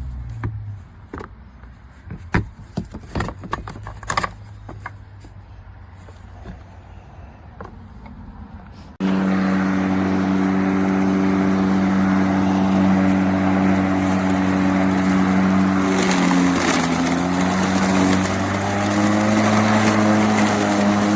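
Scattered clicks and knocks, then about nine seconds in the Greenworks 80V brushless cordless mower's motor and spinning blade start abruptly and run with a steady hum, its pitch dipping briefly near the end before rising again.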